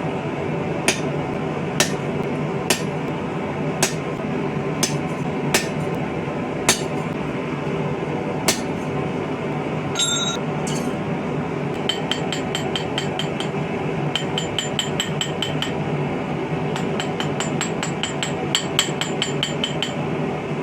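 Hammer striking a curved chisel into a steel star blank, one sharp blow about every second for the first eight seconds. After a ringing clink about ten seconds in, a fast run of lighter hammer blows rings off the steel, over a steady roar.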